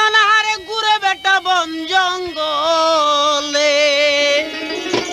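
Music from a Bangla jari folk song: one ornamented melody line that slides between notes, then settles into a long held note before dropping away near the end, where a short knock sounds.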